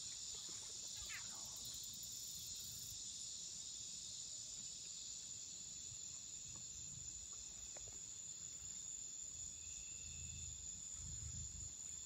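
Night insect chorus: crickets trilling steadily in a continuous high-pitched band.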